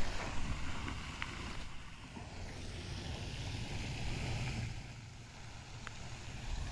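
Wind buffeting the microphone over a steady hiss, with a couple of faint clicks.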